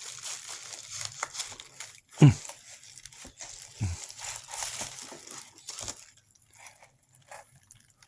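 Packaging crinkling and rustling as items are rummaged out of a box, with a few dull thumps, the loudest about two seconds in; it dies down after about six seconds.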